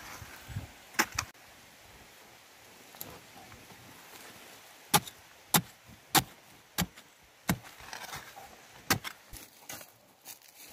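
A long-handled digging tool chopping into hard, dry earth in a narrow pit. There are a couple of sharp strikes about a second in, then a run of about five strikes roughly two-thirds of a second apart, and one more near the end.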